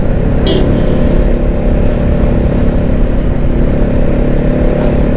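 Motorcycle engine running at a steady speed while riding, under a dense rumble of wind noise.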